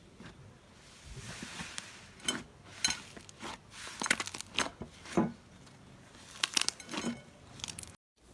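Slime being squeezed and poked by hand, giving an irregular run of sharp crackles and pops.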